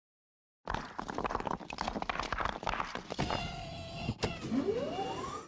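Cartoon vehicle sound effects: a clattering, rattling mechanical noise full of clicks, then a steadier pitched motor-like buzz, a sharp knock, and a rising whine over the last second.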